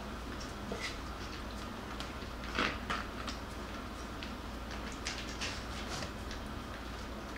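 Puppies scuffling in a cardboard box lined with a burlap sack: scattered short scratches and knocks of paws and bodies against the cardboard and burlap, the loudest a pair about two and a half seconds in, over a low steady hum.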